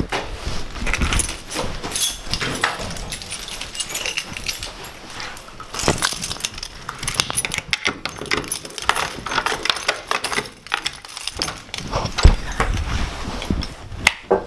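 A bunch of keys jangling and clicking in a door lock, among footsteps and small knocks of handling. A single sharp knock stands out about twelve seconds in.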